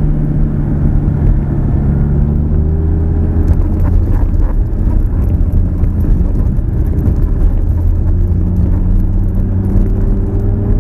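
Lamborghini Gallardo's V10 engine running at low revs, heard from inside the cabin over road rumble from the tyres. The note is steady and rises gently near the end as the car picks up a little speed.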